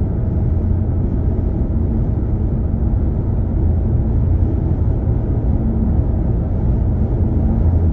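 Steady low rumble of road and engine noise inside a car's cabin at highway speed.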